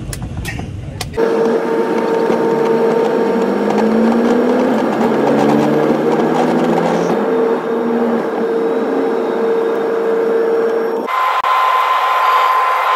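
Turboprop airliner's engines and propellers heard from inside the cabin: a loud steady drone with a strong held hum, starting about a second in, with lower tones gliding upward in the middle. About two seconds before the end it changes abruptly to a thinner, higher steady tone.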